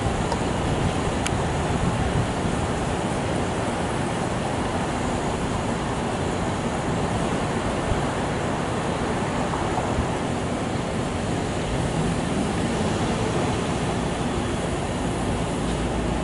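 Steady low rumble of an R160 subway train running on elevated tracks, mixed with city traffic noise.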